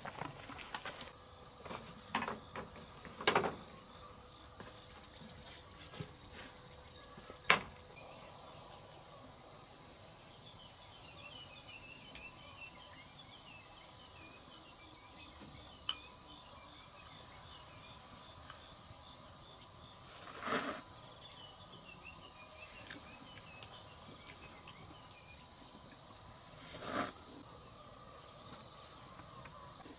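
Steady high trilling chorus of insects. A few sharp knocks cut through it, the loudest a few seconds in and about seven seconds in, and there are two short, broader noises around twenty and twenty-seven seconds in.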